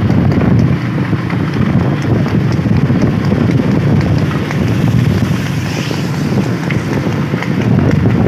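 Wind buffeting the microphone, a dense low rumble over the noise of a moving vehicle.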